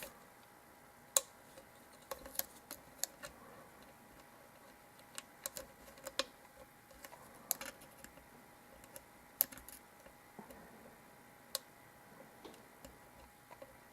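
Lock pick and tension wrench working the pin stack of a Zeiss Ikon euro cylinder lock during single-pin picking: faint, irregular metallic clicks and ticks, a few sharper ones standing out, as the pins are probed and set.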